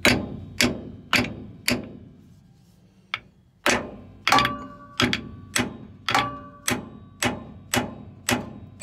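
Hammer blows on a truck differential's pinion yoke to drive the pinion out of the housing, about two a second, with a pause of a couple of seconds after the first four. A few of the blows leave a short metallic ring.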